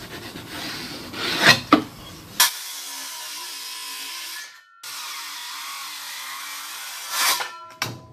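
A wooden board is handled with a few knocks, then a power saw runs steadily as it cuts a notch in the board, with a brief break near the middle. More knocks follow near the end.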